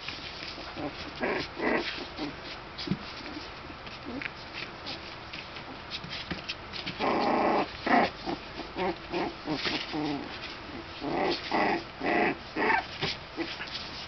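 Young Cairn terrier puppies play-fighting, giving short growls and yips. There is a longer growl about halfway through, and a quick run of short ones near the end.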